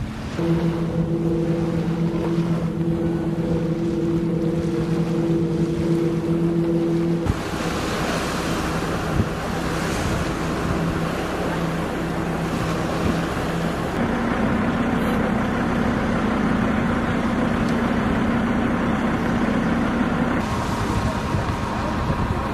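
A boat's engine running with a steady low drone, over choppy water and wind buffeting the microphone. The engine's pitch jumps abruptly a few times as the shots change.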